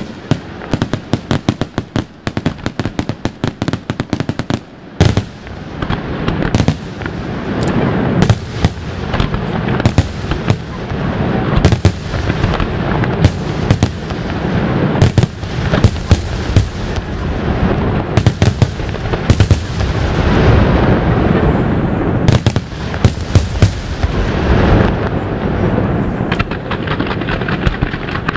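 Aerial fireworks display by La Rosa International Fireworks: rapid sharp crackling for the first few seconds, then from about five seconds a dense barrage of shell bursts, booms and crackle, with sharp crackles again near the end.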